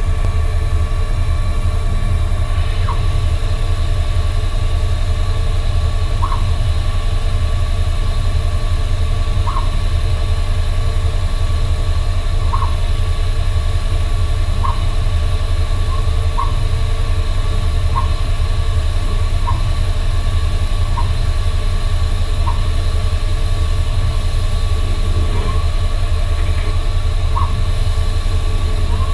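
Optimum CNC lathe running steadily while threading: a loud spindle and drive hum with a steady whine, and a short chirp every one to three seconds as the internal threading tool takes repeated passes inside the brass tube.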